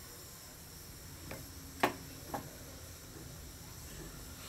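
Three light clicks about half a second apart, the middle one loudest, at a steel kadai of okra curry left to boil, over a faint steady hiss.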